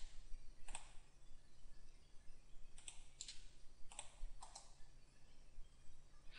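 Faint clicks of a computer mouse and keyboard, about five separate clicks spread out, some close together in pairs.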